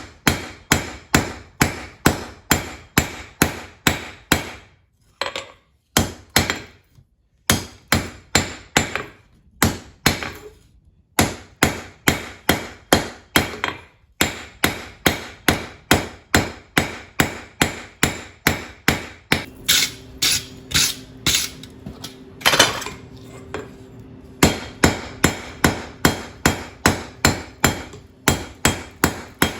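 Blacksmith's hand hammer striking hot steel on an anvil in a steady run of about three blows a second, with a few short pauses: the reins of slot jaw tong blanks being drawn down, the edges knocked off as the stock is rotated.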